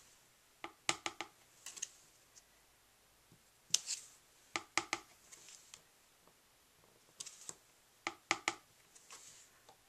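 Light clicks and taps of card stamping: a small stamp and ink pad handled and pressed onto paper. They come in small clusters of two or three every second or two.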